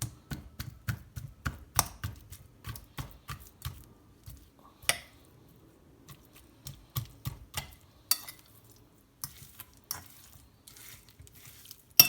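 A fork jabbing raw seasoned chicken drumsticks: a run of sharp, irregular clicks and taps, several a second, with a short pause partway through.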